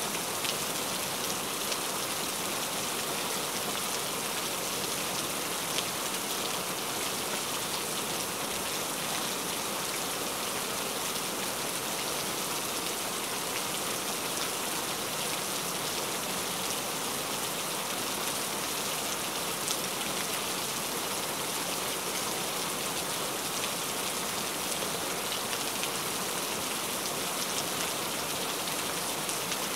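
Steady heavy rain: a dense, even hiss of falling rain with a few faint drop ticks.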